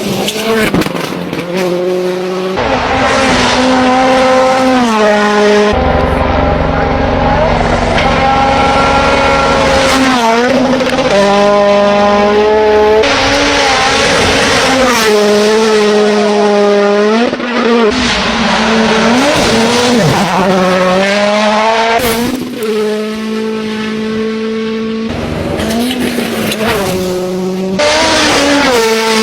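Rally cars driven flat out, engines revving up and dropping back again and again through gear changes, with tyre squeal. The sound changes abruptly every few seconds as one car gives way to another.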